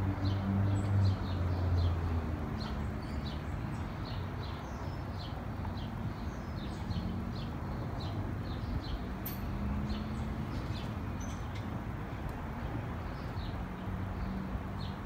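Distant rumble of a Boeing 787-9 jetliner climbing away after takeoff, fading over the first couple of seconds and then holding steady and low. Small birds chirp repeatedly over it throughout.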